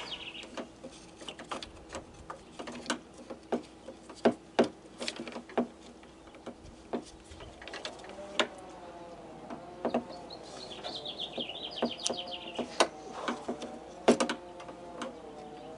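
Scattered clicks and light knocks of small metal and plastic parts being handled and fitted as a Chevy Silverado exterior door handle, lock cylinder and retaining clip go back into the door. A bird chirps a quick high trill about ten seconds in.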